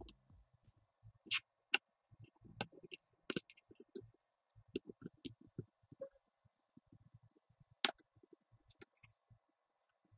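Lego Technic plastic parts clicking and snapping as pins and beams are pressed together by hand: scattered sharp clicks at uneven intervals, a few of them louder.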